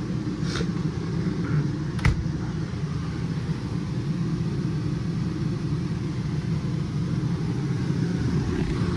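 Steady low rumble, with a light click about half a second in and a sharper knock about two seconds in.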